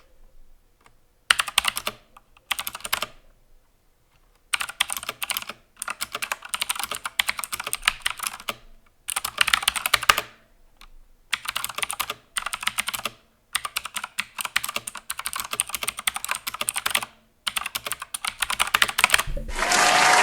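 Typing on an E-Element RGB mechanical keyboard with Outemu Blue clicky switches. It comes in fast runs of keystrokes, each a second or two long, with short pauses between them.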